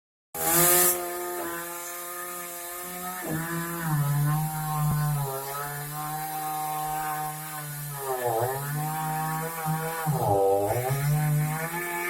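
Small chainsaw running and cutting wood. Its engine note holds steady, then dips sharply in pitch twice, about two-thirds of the way in and near the end, as it bogs down in the cut.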